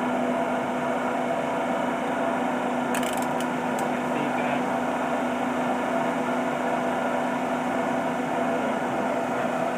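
Ikegai AX25N CNC lathe running steadily with a constant hum from the spinning spindle and chuck while the tool is fed in by joystick to cut the workpiece, with a few short clicks about three seconds in.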